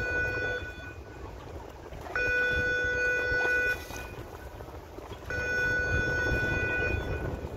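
Warning signal of a swinging harbour footbridge sounding in steady-pitched blasts, each about a second and a half long with pauses of about the same length. The end of one blast is followed by two more, over a low rumble.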